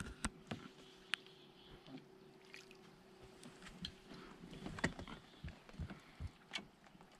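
Scattered light clicks and knocks from a fishing rod, reel and a small sunfish being handled in an aluminium boat as the fish is swung aboard and unhooked. A faint steady hum runs underneath and stops about two-thirds of the way through.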